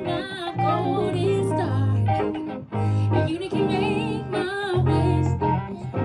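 Live band music: a melody sung with vibrato over held bass notes and guitar.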